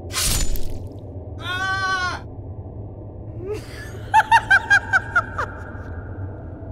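Cartoon sound effects for a sword slicing off an arm: a sharp slash at the start, then a high-pitched scream about a second and a half in, then a quick run of about seven short high laugh-like cries, over a low steady hum.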